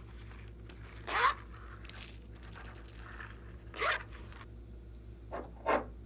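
Slime being worked by hand, giving four short raspy strokes like a zip pulled: one about a second in, one near four seconds, and two in quick succession near the end.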